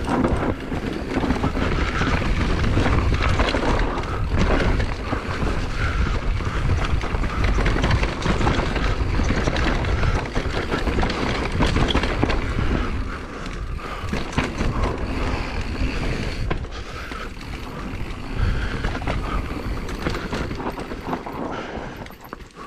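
Enduro mountain bike descending a rough, bumpy dirt trail: tyres running over dirt and rocks and the bike rattling over the bumps, in a loud, steady rush full of small knocks. It eases off near the end as the bike slows.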